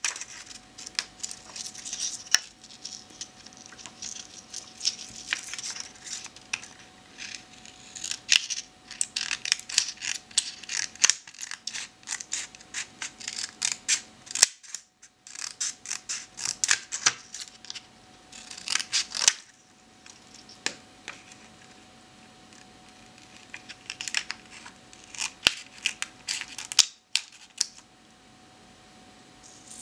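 Scissors cutting photo paper: runs of quick snips. There is a quieter stretch a little past halfway.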